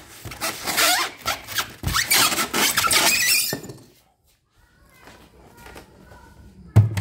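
Styrofoam packing squeaking and scraping against a cardboard box as an embroidery machine is pulled out of it, for about three and a half seconds. A sharp thump near the end as the machine is set down on a table.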